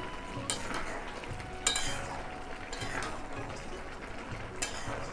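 Metal spatula stirring and scraping a simmering curry in an aluminium kadai: four sharp scrapes against the pan, the loudest about a second and a half in, over the steady simmer of the gravy.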